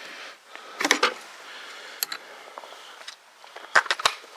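Scattered clicks and knocks of metal tools and parts being handled while the saw's turntable release mechanism is taken apart: one about a second in, another near two seconds, and a quick double knock near the end, which is the loudest.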